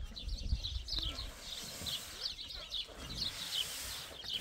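Small birds chirping over and over in short, quick, falling notes, over a low rumbling background.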